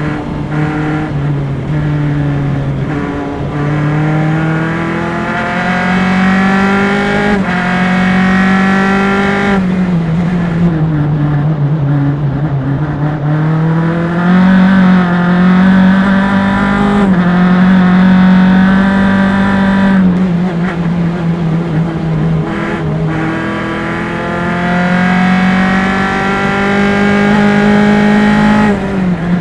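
Single-seater race car's engine recorded on board at racing speed, rising in pitch through the gears with quick upshifts. It falls away under braking and downshifts about ten seconds in and again around twenty seconds, then builds again.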